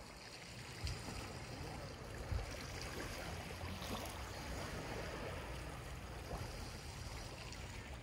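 Small sea waves lapping and washing against concrete shore steps, with a low wind rumble on the microphone. Two brief low bumps about a second in and again a second and a half later.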